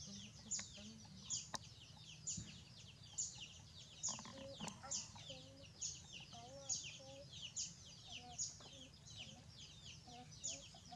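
Outdoor yard ambience: hens clucking softly, under a high-pitched call that sweeps downward and repeats about once a second throughout.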